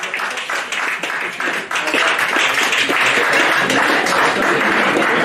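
Audience applauding: scattered claps that swell about two seconds in into dense, loud applause.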